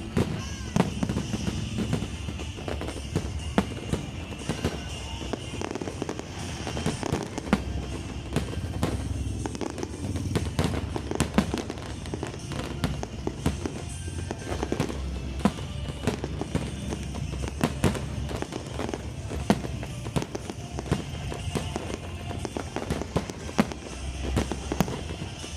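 Aerial fireworks display: a continuous run of bangs and crackling bursts, many per second.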